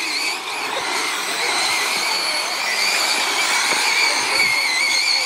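Radio-controlled modified dirt-oval race cars lapping the track: a steady high-pitched motor whine that wavers slightly in pitch, over a constant hiss.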